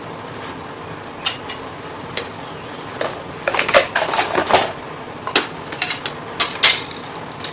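Small toy kitchen pieces clacking and clattering as they are handled: a few scattered clicks at first, then a busier run of clacks from about three seconds in.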